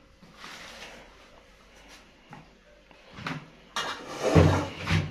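Small knocks and a click, then a louder clatter of things being handled near the end, like kitchen utensils, a drawer or a cupboard.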